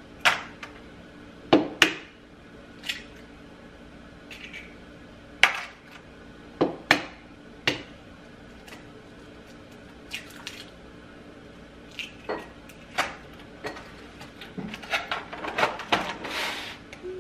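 Eggs being cracked open over a plastic blender cup: a series of sharp taps and shell cracks, some in quick pairs, then a denser patch of light clattering near the end.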